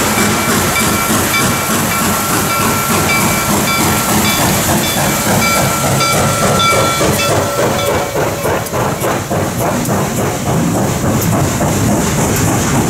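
Reading T-1 4-8-4 steam locomotive No. 2102 running past at speed, its exhaust and running gear hissing, with broken high steady tones through the first seven seconds or so. From about eight seconds in, the hopper cars roll by with a quick, regular clatter of wheels over the rail.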